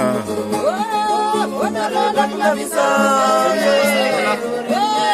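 Voices singing a song, gliding between held notes over a steady low note.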